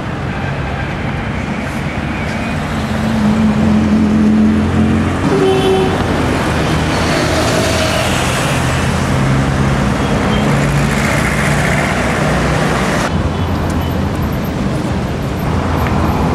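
Busy city street traffic: cars and buses running past, with a steady engine hum underneath.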